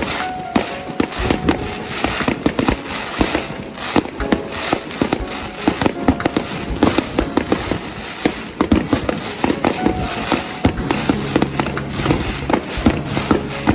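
Fireworks going off in a rapid, dense string of bangs and crackles.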